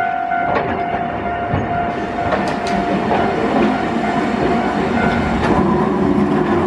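Hankai Tramway Mo161-type tram car 162 passing close by, its wheels clacking over rail joints and points in several sharp clicks. A steady high tone fades out about halfway through, and a lower hum builds near the end.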